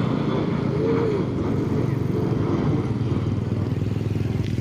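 Excavator's diesel engine running steadily, a low, even engine note.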